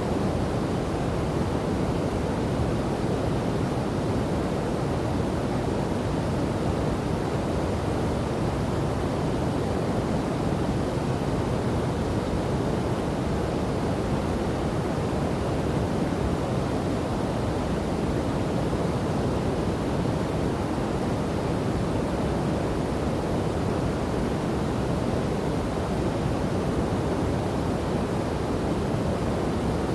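Waterfall and river water rushing steadily, a low, even rush with no breaks.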